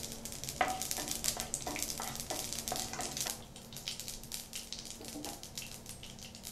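Mustard and cumin seeds spluttering in hot oil in a frying pan: a steady sizzle with many small crackling pops, which thin out in the second half. The spluttering is the sign that the oil is hot and the tempering is done.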